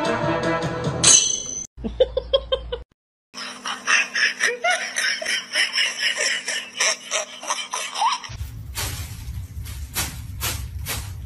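Background music and laughter, broken by abrupt cuts, with a moment of dead silence about three seconds in. Later the sound turns into a string of evenly spaced strokes over a low hum.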